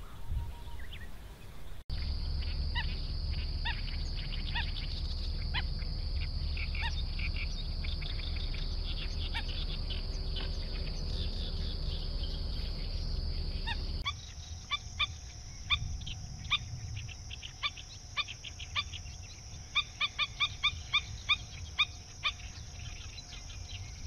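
Short, sharp bird calls repeated over a steady high-pitched insect drone. The background changes abruptly about two seconds in and again halfway through, and the calls come thicker and quicker in the second half.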